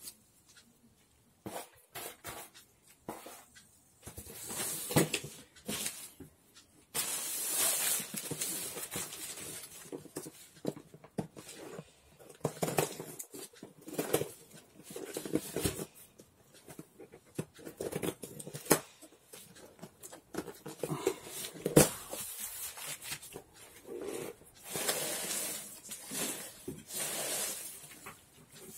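Cardboard and paper packaging being handled and torn open, rustling in irregular bursts with scattered light clicks and knocks, and one sharp knock about two-thirds of the way through.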